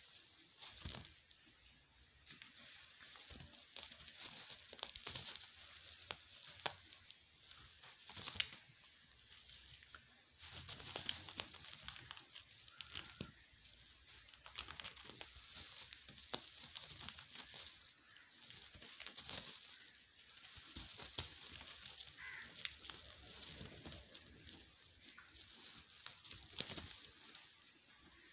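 Woven plastic tarp crinkling and rustling under kittens' paws as they scramble and play on it, in faint irregular crackles.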